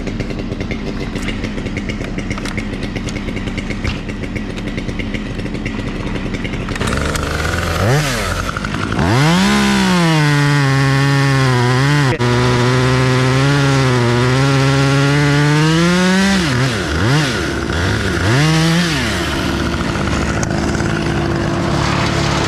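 Chainsaw idling, then revved to full throttle about eight seconds in and held there for about seven seconds, its pitch sagging and recovering as it works through the wood. It then drops back, is blipped twice, and settles to idle.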